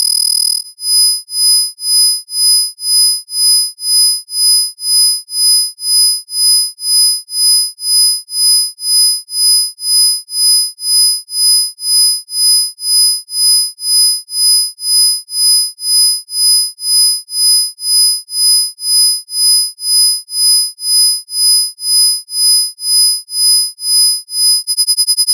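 A high-pitched chord of pure electronic sine tones, the shrillest and strongest at the top, pulsing on and off together a little more than once a second, as in an isochronic-tone healing track. The pulsing starts about a second in and gives way to a steady tone just before the end.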